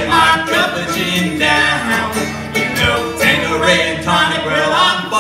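Live acoustic duo: a strummed banjo ukulele and a strummed steel-string acoustic guitar, with two male voices singing over them.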